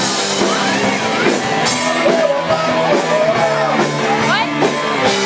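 Rock band playing live, with a sung vocal line over electric guitar, bass and drums.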